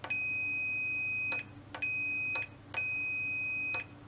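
Fluke 179 multimeter's continuity beeper sounding a steady high beep three times in uneven lengths, a long one, a short one and a medium one, each starting with a click. The beeper sounds whenever the probes read a closed circuit, so the contact across the part under test is making and breaking.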